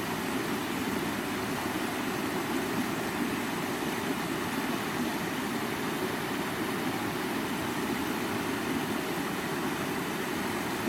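River water flowing, a steady, even rushing with most of its weight low in pitch.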